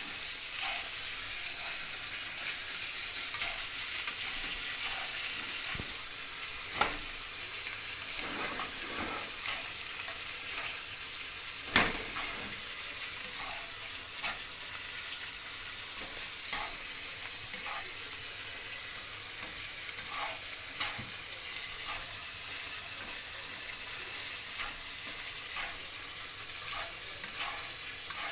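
Frozen fried rice sizzling in a frying pan as a spatula stirs and scrapes it, with repeated short scrapes and two sharper knocks of the spatula on the pan, about seven and twelve seconds in.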